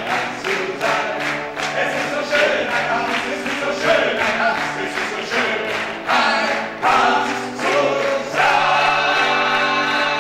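Several men singing together into microphones over a steady beat of about three strokes a second, settling into a long held chord about eight seconds in.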